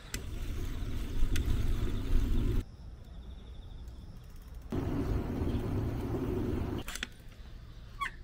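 Low rumble of wind and road noise on the camera microphone while cycling along a street, with a couple of light clicks. The level drops and rises abruptly several times. A short rising squeak comes near the end.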